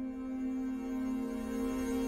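Ambient soundtrack music: a held drone chord that slowly swells in loudness, with a low rumble building from just past the middle.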